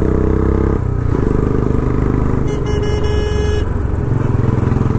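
Royal Enfield Bullet motorcycle's single-cylinder engine running under way, with a vehicle horn sounding once for about a second midway.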